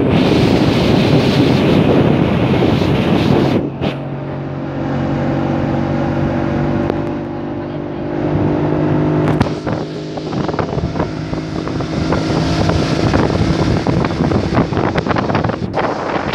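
Motorboat's outboard motor running under way, a steady engine note over the rush of water and wind on the microphone. The sound changes abruptly about four and about nine and a half seconds in.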